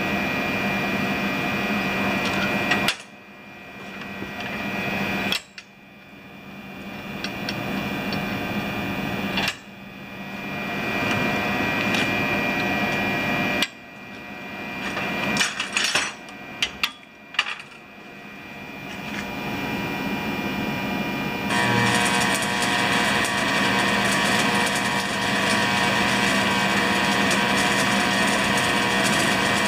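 Stick (arc) welding: the electrode arc crackles and hisses, cutting out suddenly several times through the first two-thirds, with a few sharp taps in the middle, then runs steadily for the last eight seconds or so.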